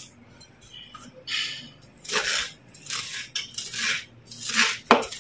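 Crunchy food being chewed close to the microphone: a series of crisp crunches, about one a second and getting louder. A sharp click sounds near the end.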